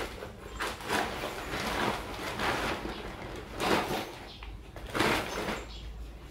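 Tent fabric rustling and swishing as it is pulled and spread out by hand, in repeated bursts, the loudest about four and five seconds in.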